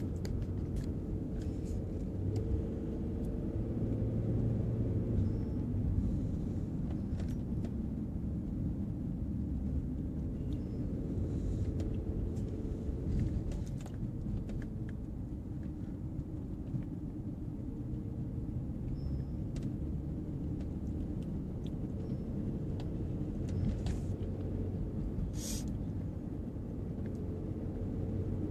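Car driving on a paved mountain road, heard from inside the cabin: a steady low rumble of engine and tyres, with a few faint clicks and one short hiss near the end.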